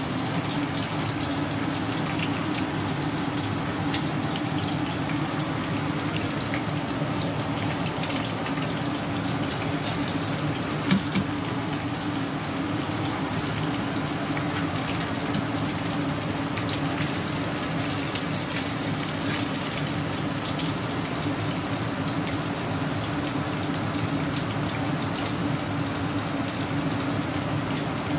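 Hot oil sizzling steadily around pieces of hairtail fish frying in a pan, with scattered small pops and crackles.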